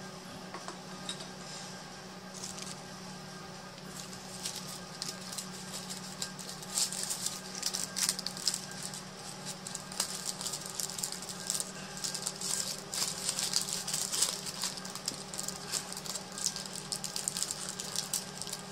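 Parchment paper crinkling and rustling as it is folded by hand, in quick irregular crackles that get busier and louder from about four seconds in, over a steady low hum.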